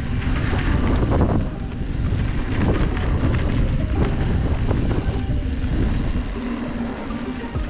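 Wind buffeting the microphone over the rumble and rattle of a mountain bike rolling along a dirt trail.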